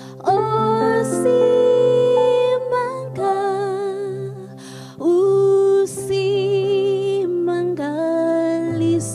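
A woman singing a slow song into a microphone: long held notes with vibrato, short breaths between phrases, over a steady low sustained accompaniment.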